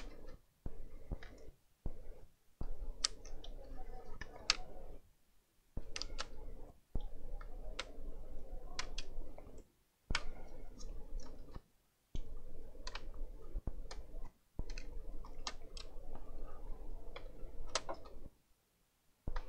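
Irregular sharp clicks and taps of hands and a small screwdriver working on a laptop's motherboard and plastic chassis during disassembly, over a low background hum.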